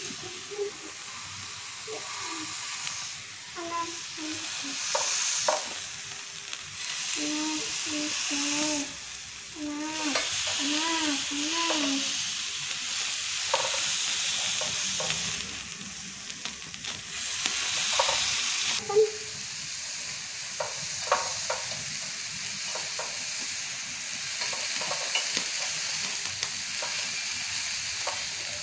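Chicken satay sizzling on a perforated grill pan over a portable gas stove, a steady frying hiss, with scattered clicks as the wooden skewers are turned over on the grate.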